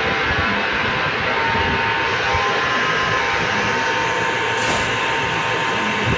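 Steady machinery drone during a large cruise ship's docking: a constant hum of several held tones over a wash of noise, with no change in level.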